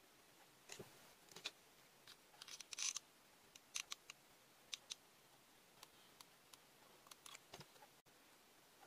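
Faint, scattered small clicks and rustles of hands handling crocheted doll pieces and a hot glue gun, with the densest, loudest run of clicks about three seconds in.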